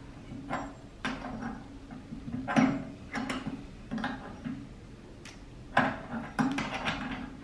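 Two flat steel spanners clinking and scraping on the spindle nut and cast-iron table of a table spindle moulder as they are fitted, pulled and repositioned to tighten a router cutter: a series of short metal knocks, about a dozen.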